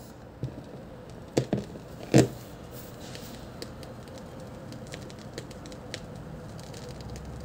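Dual 1214 turntable with the stylus set down near the end of a record: a couple of sharp clicks about a second and a half and two seconds in, then quiet surface crackle and scattered faint ticks from the record, heard through the speakers over a faint steady hum.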